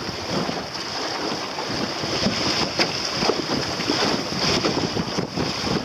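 Wind buffeting the microphone on a small sailboat under way, over water splashing and slapping against the hull in irregular knocks.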